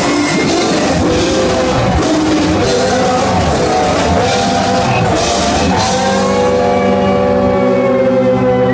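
Live rock band playing: electric guitar, bass guitar, keyboard and drum kit. About six seconds in the drums drop out and the band holds a long sustained chord.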